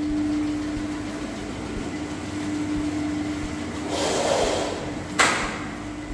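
Pulveriser mill running, grinding ragi (finger millet) into flour, with a steady hum and grinding noise. A sharp knock sounds a little after five seconds in.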